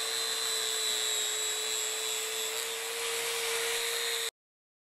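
Angle grinder fitted with a sanding disc running at steady speed with a constant high whine as it polishes a steel blade. The sound cuts off suddenly near the end.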